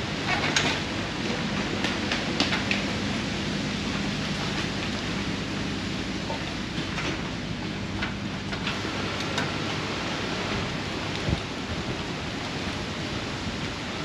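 Wind rushing and buffeting against the microphone in strong gusts, a steady noise, with a faint low hum under it for the first half and a few light ticks.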